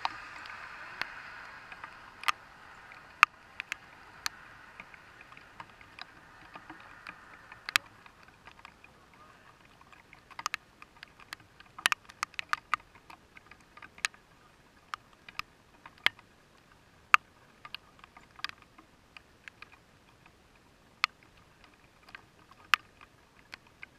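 Scattered raindrops striking the car's windshield and roof, heard from inside the car: irregular sharp taps, one to three a second, over a faint hiss that fades in the first few seconds.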